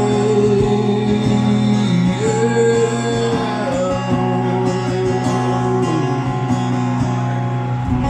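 Live band music at the end of the song: guitar strumming under long held notes that slide between pitches, with no sung words.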